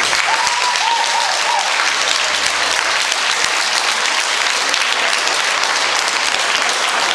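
Spectators applauding steadily, a dense run of hand claps.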